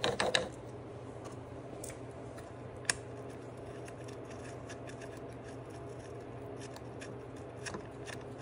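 Light clicks and rubbing from a hand working at the hub of a lawn mower's plastic drive wheel as it is fitted onto the axle, with a short clatter right at the beginning and one sharp click about three seconds in, over a steady low hum.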